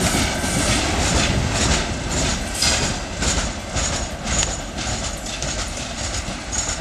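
Wagons of a loaded broad-gauge ore train rolling past, with a rumble and repeated wheel clacks over the rail joints, a few a second, growing gradually fainter.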